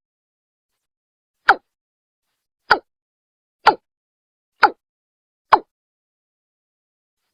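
Watercock (Gallicrex cinerea) call recording used as a bird lure: five short, sharp falling notes, each coming a little sooner after the last, with dead silence between them.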